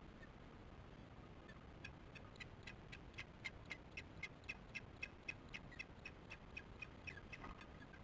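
Osprey alarm calling: a rapid series of short chirps, about four a second, starting about two seconds in and lasting some six seconds. It is the alarm given at an intruder near the nest.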